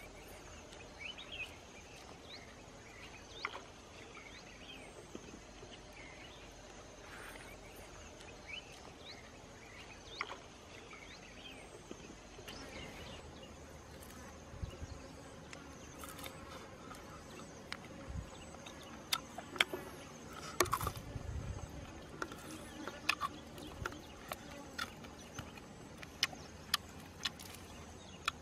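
A steady high insect buzz with short chirps over it. In the second half come low thumps and many sharp clicks and crackles as a charred, grilled frog is torn apart by hand.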